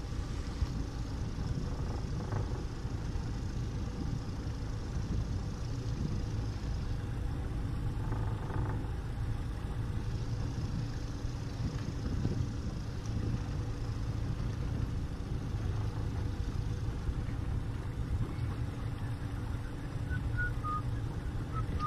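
Honda 90 four-stroke outboard motor running steadily, an even low hum that keeps the same level throughout.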